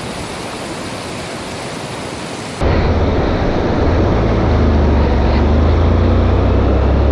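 Wind and road noise on the microphone of a moving motorcycle: a steady rush that abruptly turns into a heavy low wind rumble about two and a half seconds in.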